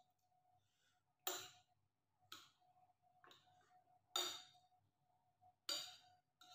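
Metal spoon and fork clinking and scraping against a ceramic plate as food is mixed and scooped: short clinks, about one a second.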